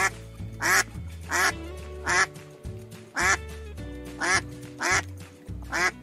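Mallard duck quacking: a series of about eight loud, evenly spaced quacks, roughly one every three-quarters of a second, over background music.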